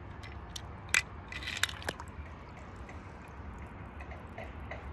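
A few small clicks and taps of die-cast toy cars being handled: a sharp tap about a second in, a short cluster just after, then fainter ticks.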